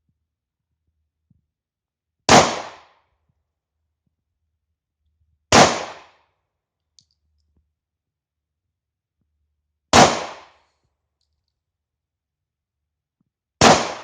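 Four single shots from a 9mm German P.08 Luger pistol, fired slowly and evenly spaced about three to four seconds apart as aimed fire. Each shot is a sharp crack that dies away quickly.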